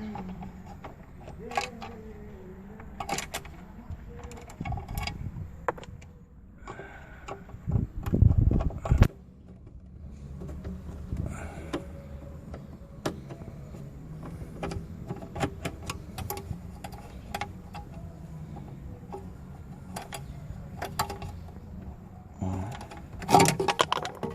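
Plastic dashboard trim of a JAC J3 being worked loose by hand: scattered clicks and knocks as the storage compartment below the radio is pulled free. There is a louder low rumbling stretch of handling about eight seconds in and a louder clatter near the end.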